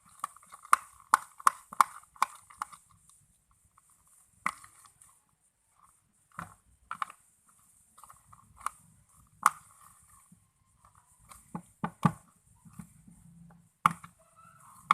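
Slime mixed with activator and soap being stirred in a container, making sharp clicks and knocks: about three a second at first, then scattered single ones.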